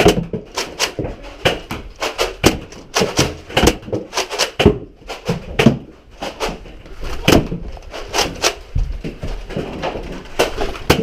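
A rapid, irregular run of sharp clicks and knocks, about two or three a second.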